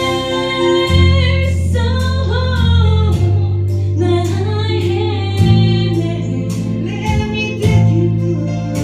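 Live gospel choir singing with a band: deep bass notes held and changing about every two seconds under a steady drum beat.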